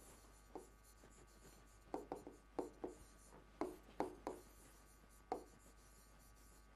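Pen writing on a board: short scratchy strokes in small groups with brief pauses between, as handwritten characters are put down.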